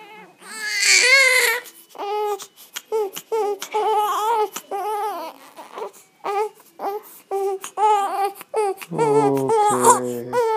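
Newborn baby crying in short, repeated high-pitched wails, the loudest about a second in. Near the end a man's low voice joins in.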